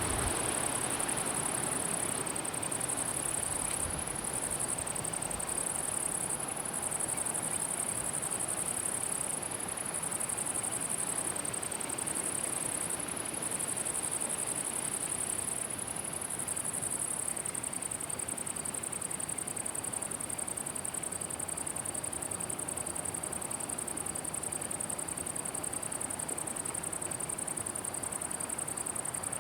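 Summer meadow insects stridulating in a high, thin continuous buzz that breaks off briefly every couple of seconds at first and then runs on steadily, over a soft even background hiss.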